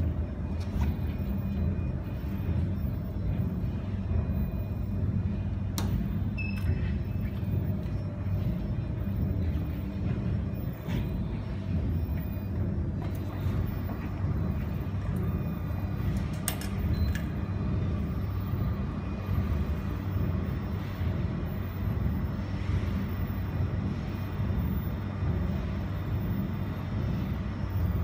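Steady low hum of a jewelry laser welding machine and its water chiller running after being powered on, with a few faint clicks.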